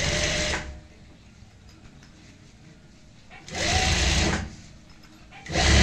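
Industrial sewing machine stitching through quilted bag fabric in short stop-start runs: one run stops under a second in, another runs for about a second from three and a half seconds in, and a third starts near the end. The stops and starts come as the seam is guided around a corner.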